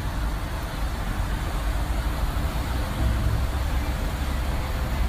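Steady city street noise: a low rumble of road traffic.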